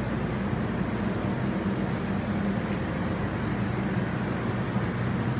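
Steady low mechanical hum and rumble with an even hiss over it, unchanging throughout: workshop background noise.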